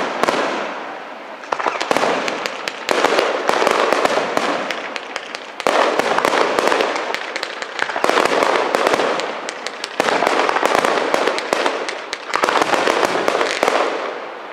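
Aerial firework shells bursting in quick succession at a fireworks display: a loud burst every second or two, each fading away under many sharp cracks and crackling.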